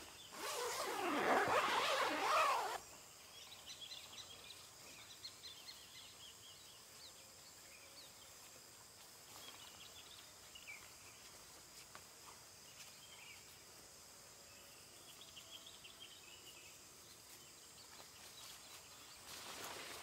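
Close rustling and scraping of nylon tent fabric being handled, loud for about the first three seconds. After that, quiet outdoor background with faint, scattered high chirps, like insects.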